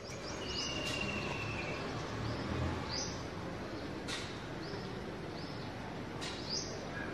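Small birds calling in the trees: a series of short, high chirps that each drop in pitch, repeated every second or so, and one held whistled note about half a second in, over a steady background hiss of outdoor noise.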